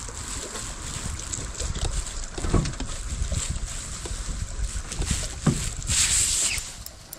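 Wind buffeting the microphone over water lapping at a small jon boat, with a few light knocks from handling in the boat.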